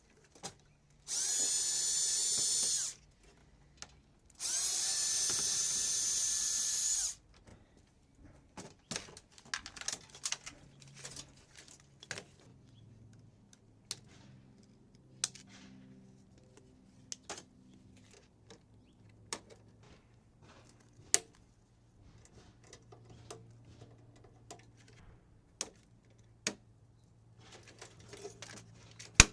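Power drill-driver whining in two steady runs, about two and then nearly three seconds long, backing out screws to free the microwave's fan. After that, scattered sharp clicks and small clinks of metal parts being handled.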